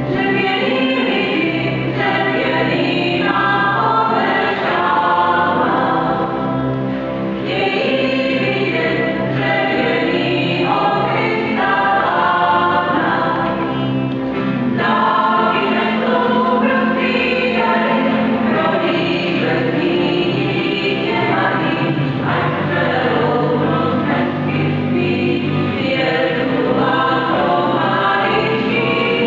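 Small mixed vocal group of men and women singing together, accompanied by acoustic guitar, double bass and violin, with steady low bass notes under the voices.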